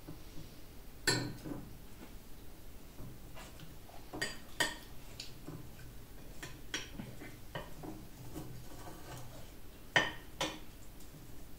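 Metal cutlery clinking and scraping on a ceramic plate as chicken is cut with fork and knife: scattered sharp clinks, the loudest about a second in and a pair near the end.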